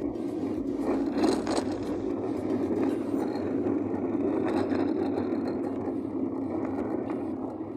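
Steady road and engine noise heard inside a moving car's cabin, with two brief louder swells, about a second in and again near the middle.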